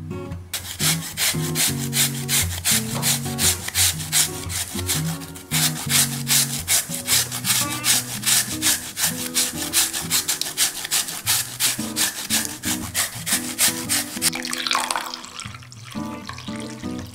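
Radish being grated on a metal hand grater, quick rasping strokes about three or four a second with a brief pause about five seconds in. Near the end, water pours into the bowl. Soft background music runs underneath.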